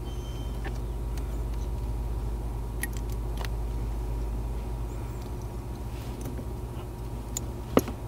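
Light ticks and clicks of a metal pick tool working inside a plastic OBD-II data link connector to release a terminal pin's locking tab, with one sharp click near the end. A steady low hum runs underneath.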